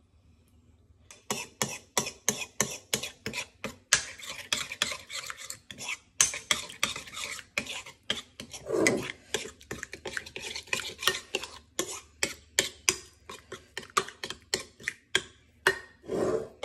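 A metal spoon stirring a thick marinade in a mixing bowl, clinking against the bowl's side about three to four times a second, starting about a second in, with a couple of longer, heavier scrapes along the way.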